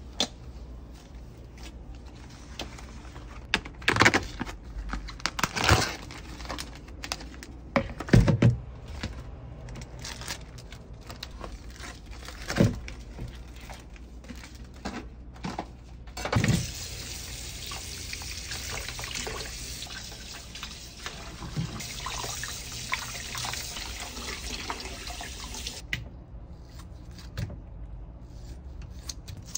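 Raw chicken being handled at a stainless-steel kitchen sink: plastic basins, the meat tray and its packaging knocking and rustling for the first half, then a tap running steadily for about ten seconds, then quiet snips and clicks of kitchen scissors trimming the chicken.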